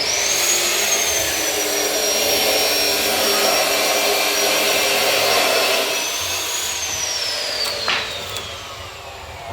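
Casadei 630 planer/thicknesser running with a high whine over a loud rushing noise. About six and a half seconds in the rush eases, the whine rises briefly and then falls steadily as the cutterhead coasts down, with a couple of knocks along the way.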